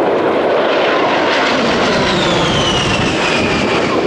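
A-10 Thunderbolt II's twin General Electric TF34 turbofan engines during a low pass: a loud, steady rush of jet noise with a high whine that slides down in pitch from about two seconds in as the jet goes by.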